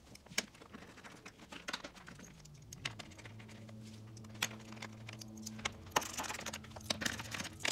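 Light clicks, taps and rattles of a plastic radiator shroud and its bolts being fitted by hand onto a dirt bike, with a faint steady low hum from about three seconds in to near the end.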